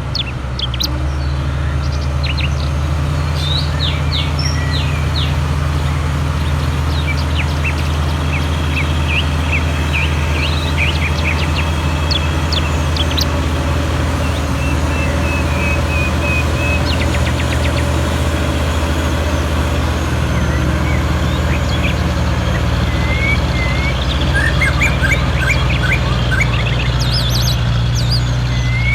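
Birds chirping and whistling, many short calls and quick gliding notes, over a steady low hum.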